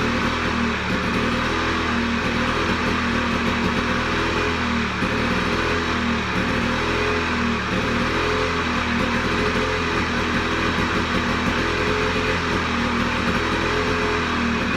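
Two-stroke Lawn-Boy mower engine running steadily, its pitch wavering slightly up and down.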